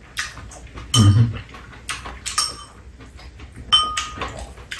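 Metal spoons and chopsticks clinking against ceramic bowls, with the mouth sounds of people eating noodles. There are a few sharp clinks, and a ringing one later on.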